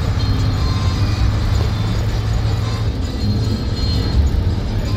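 Isuzu FRR33 bus driving at speed, heard from inside the cabin: a steady low engine and road rumble.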